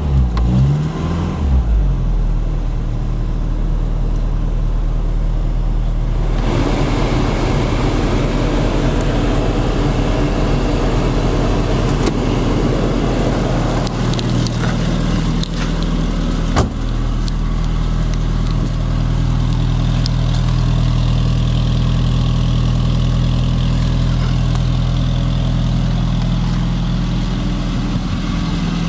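1984 Peugeot 205 engine idling just after a cold start: the revs waver for the first second or so, then settle into a steady idle. It is heard first from inside the cabin and then from outside the car, with a single car-door thump just past halfway.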